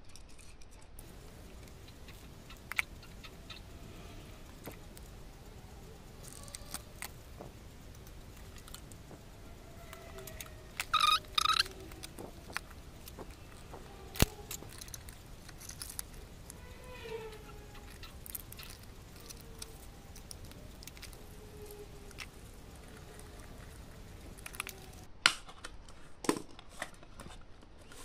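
Quiet handling noise from wiring a DIY power supply: scattered small clicks and taps as wires are fitted to the step-up module's terminals, with one brief, louder metallic clink about eleven seconds in.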